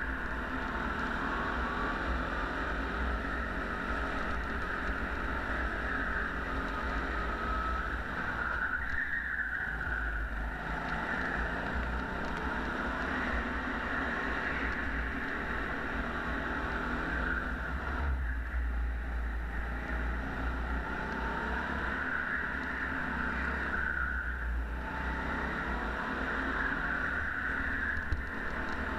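Go-kart engine running hard through a lap, a steady buzzing drone that eases off briefly three times before picking up again.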